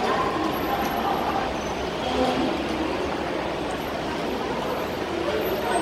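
Steady din of traffic noise with indistinct voices mixed in.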